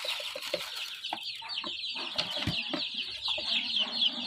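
A crowd of baby chicks peeping constantly in a brooder, many short, high, falling chirps overlapping. Scattered taps and knocks of the plastic feeder being handled.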